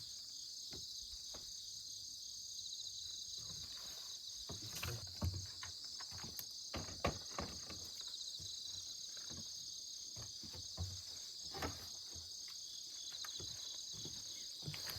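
A steady chorus of chirping insects, crickets by its sound, with scattered short clicks and knocks over it.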